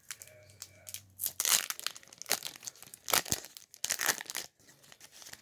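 Foil trading card booster pack being torn open and its wrapper crinkled, in several short rips and rustles, the loudest between about one and a half and four and a half seconds in.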